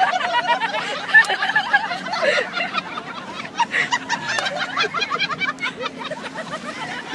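People snickering and laughing in short, overlapping bursts.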